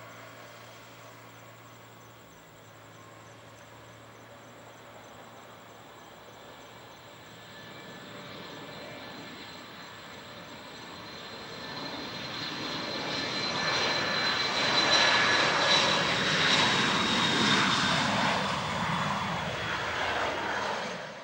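Dassault Falcon 7X business jet taking off, its three Pratt & Whitney Canada PW307 turbofans at takeoff power. The jet noise builds steadily as the jet speeds down the runway and past, loudest in the last several seconds as it lifts off. A high whine sinks slightly in pitch as it passes, then the sound cuts off abruptly.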